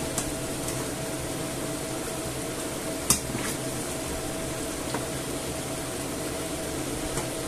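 Steady sizzling and bubbling from the hot pans on the hob while fried potatoes are scooped out of sunflower oil with a metal slotted spoon, which clicks sharply against the pan about three seconds in. A faint steady hum runs underneath.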